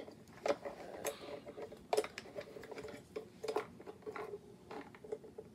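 Irregular light plastic clicks and taps as an action figure is handled and fitted into a small plastic toy wrestling ring, with the sharpest clicks about half a second and two seconds in.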